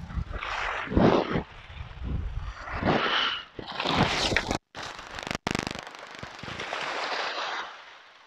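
Wind buffeting the microphone: irregular gusts of rumbling, crackling noise that cut out to silence twice near the middle.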